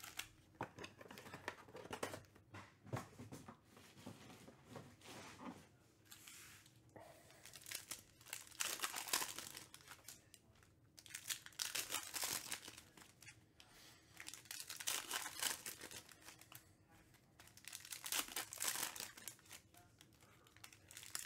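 Plastic-foil trading card pack wrappers being crinkled and torn open, in repeated bursts every few seconds.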